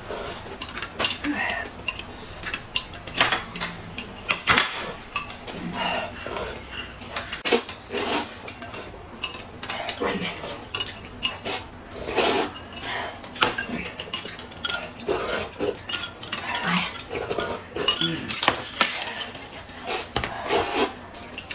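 Metal spoons clinking and scraping against glass cups as corn soup is eaten, in irregular short clicks, with noodles being slurped from a bowl.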